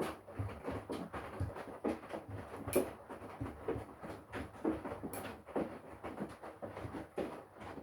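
Front-loading washing machine drum tumbling wet laundry: irregular sloshing of water and soft thuds and knocks of clothes falling, with a few louder hits, stopping abruptly near the end.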